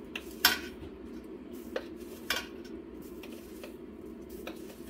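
Stainless steel measuring spoons on a ring clinking against each other and the rim of a stainless steel stockpot while dried chives are measured into it. A few scattered sharp clinks, the loudest about half a second in, over a steady low hum.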